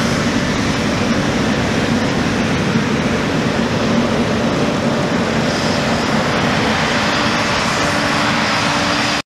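New Holland CR1090 combine harvester running steadily under load while harvesting oilseed rape, a dense mechanical drone with a steady low hum. The sound cuts off suddenly near the end.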